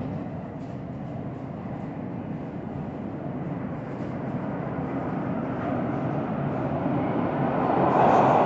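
TTC subway train approaching through the tunnel, a rumble that grows steadily louder and swells sharply near the end as the train nears the platform.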